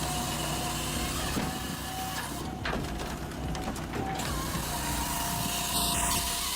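Firewood processor running: a steady engine and hydraulic drone with scattered knocks and clanks of logs being handled.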